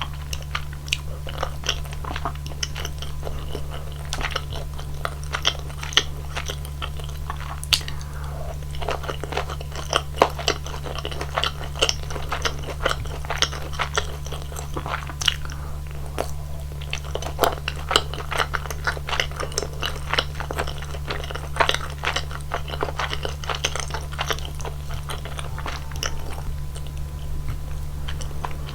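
Close-miked chewing and biting of rosé tteokbokki, the chewy rice cakes giving wet, sticky mouth sounds with many short sharp clicks, over a steady low hum.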